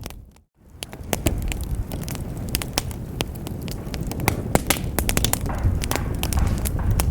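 Wood fire in a fireplace crackling and popping, with sharp irregular snaps over the low rumble of the flames. The sound drops to silence for a moment about half a second in, then the crackling resumes.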